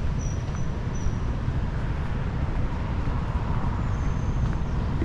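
Steady low rumble of city road traffic in the background, with a couple of brief thin high-pitched whistles, one near the start and one about four seconds in.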